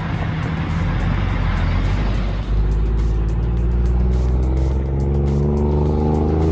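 A vehicle engine running steadily with background music over it; the sound shifts about two and a half seconds in.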